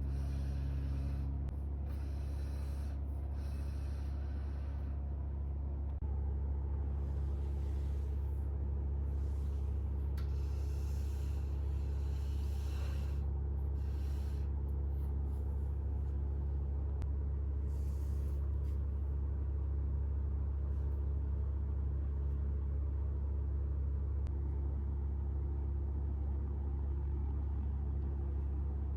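Steady low hum, with a few faint brief hissing sounds in the first half.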